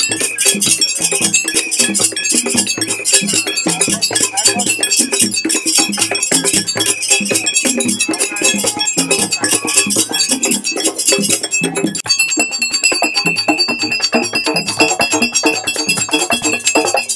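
Live West African hand drumming on djembes and other hand drums, a fast, dense rhythm. A steady high tone comes in over the drumming about twelve seconds in.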